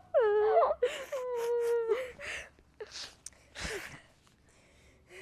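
Girls' mock crying: wavering, drawn-out wails for about two seconds, then short sniffs and breathy sobs that die away about four seconds in.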